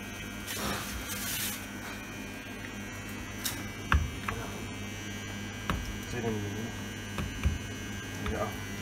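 Steady electrical mains hum, with a few light knocks and taps as a coated magnesium plate is lifted and slid about on the bed of a plate exposure unit.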